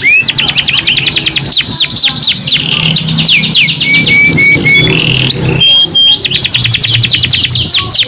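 Domestic canaries singing, with long fast rolls of rapidly repeated sweeping notes, many per second. About four seconds in comes a short run of even, flat, separate notes before the fast rolls return.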